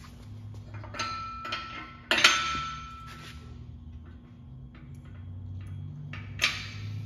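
Steel parts clanking and clinking as a wheel axle is fitted into the steel frame of a towable excavator: a few light knocks, a loud metallic clank about two seconds in that rings briefly, and another sharp clank near the end.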